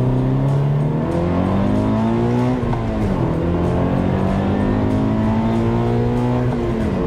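Subaru BRZ's FA20 flat-four engine accelerating, heard from inside the cabin. It climbs in pitch through the revs, with a quick drop at an upshift about three seconds in and another near the end.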